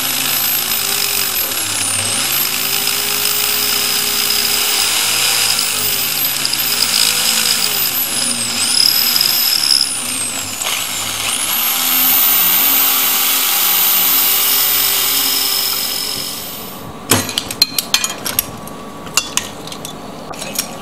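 Electric drill running in spurts, its motor whine rising and falling in pitch as the trigger is squeezed and eased. After about 17 seconds it stops, followed by a series of sharp metallic clicks and knocks.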